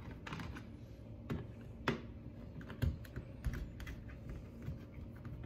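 Small Phillips screwdriver backing screws out of a laptop's plastic bottom case: an irregular run of small clicks and ticks.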